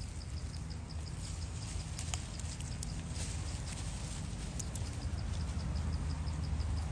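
Outdoor forest ambience: a rapid, even series of high chirps, about five a second, over a steady low rumble, with a few faint clicks.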